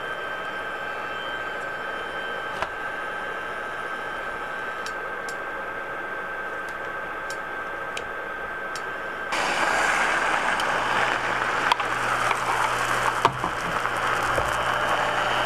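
Beaten egg sizzling loudly in a hot frying pan, starting suddenly about two-thirds of the way in. Before that there is a quieter steady hum with a few light clicks of wooden chopsticks against the pan.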